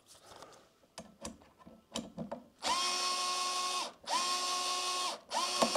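Bosch cordless screwdriver running in three short bursts, a steady whine that rises as it spins up and drops as it stops, backing out small screws. A few light clicks of handling come before the first burst.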